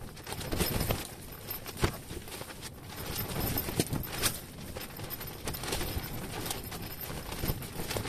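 Wind buffeting an ice-fishing tent: a low rumble with irregular flaps, knocks and rustles of the tent fabric and gear.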